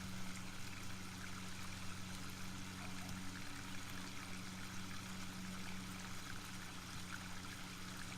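Pool pump running with a steady hum while water pours out of the sand filter's backwash line, the filter flushing dirt out of its freshly replaced sand.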